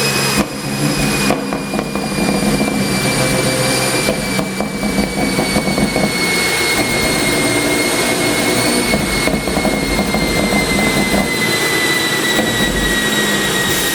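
2020 BMW X4 M (F98) with a twin-turbo straight-six, running and heard as a steady mechanical noise. Over it is a clear high whine that falls slowly and evenly in pitch, as when the car slows down.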